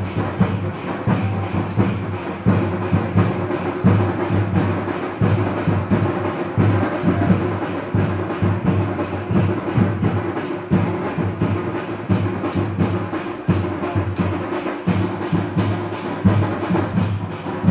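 Loud percussion music: drums beaten fast in a steady, unbroken rhythm.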